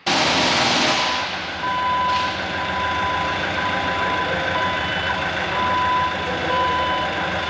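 Heavy diesel equipment engine running steadily, with its backup alarm beeping on and off over it.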